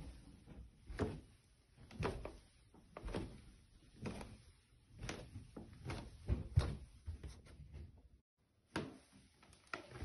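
Footsteps on stairs, slow and even at about one step a second, with a short pause near the end before the steps resume.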